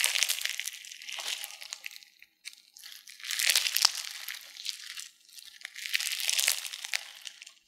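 Floam-type slime full of foam beads and bingsu beads being squeezed and stretched by hand, giving a crisp crunching, crackling noise. It comes in three bouts with short pauses between.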